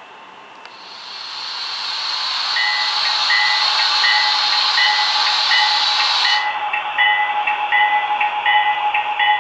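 Model railroad locomotive sound effects: a loud hiss builds up and cuts off suddenly after about six seconds, while a locomotive bell starts ringing about two and a half seconds in, about twice a second.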